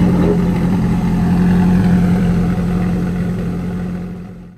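Prototype GTX600 McLaren F1 replica's engine running with a steady low drone from its twin exhaust as the car creeps away at low speed, fading out near the end.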